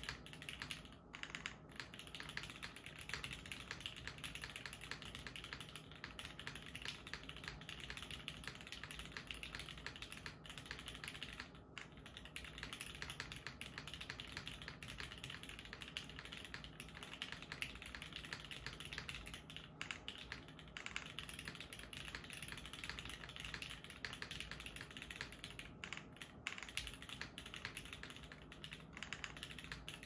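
Continuous fast typing on a Jalter aluminium top-mount mechanical keyboard fitted with Cherry MX Hyperglide Black linear switches: a dense stream of key strokes, broken by a few short pauses.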